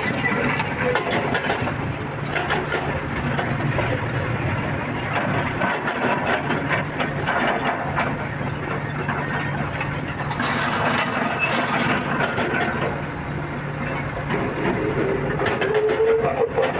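Excavator's diesel engine running steadily under work, with scattered knocks and clanks from the machine and the material it moves. A rising whine comes in near the end.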